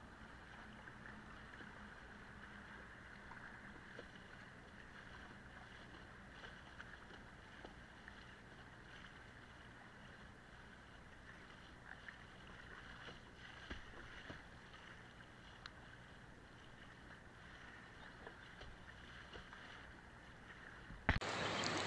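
Faint steady rush of fast river water past a kayak running downstream, with a few light knocks. Near the end it gives way abruptly to a louder, busier outdoor sound.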